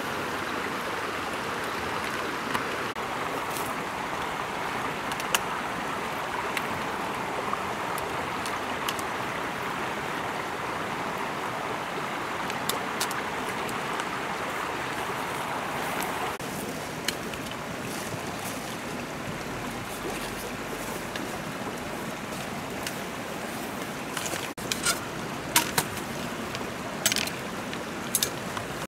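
Stream water running steadily, with a few sharp clicks and knocks of bamboo poles being handled near the end.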